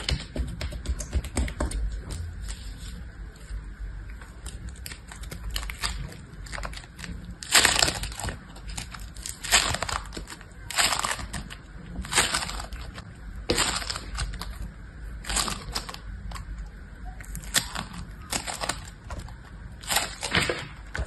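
Foam-bead slime (floam) crunching and crackling as it is peeled up and squeezed in the hand. Faint crackles at first, then from about seven seconds in a series of about nine loud crunchy squeezes, each a second or two apart.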